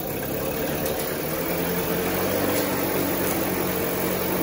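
Johnson Sea-Horse HD25 outboard, a 2.5 hp two-cylinder two-stroke, running steadily at low rpm with its lower unit in a test bucket of water.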